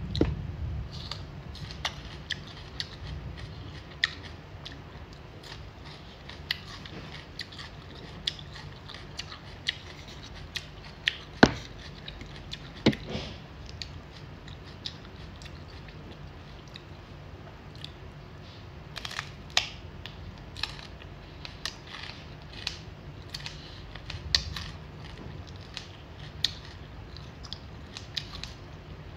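Close-up crisp crunching and chewing of raw vegetables, bell pepper and bitter melon, with irregular sharp crunches throughout and a couple of louder ones about 11 and 13 seconds in.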